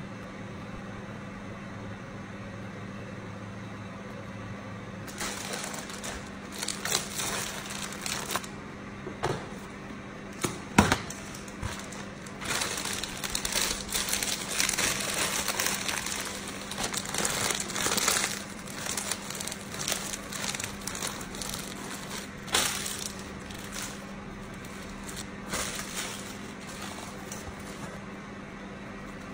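Plastic crinkling and rustling as it is handled, in uneven bursts with sharp crackles starting about five seconds in, over a steady low hum.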